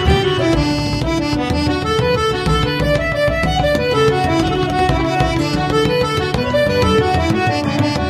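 Background instrumental folk music: a lively melody on accordion, with fiddle, over a steady low accompaniment.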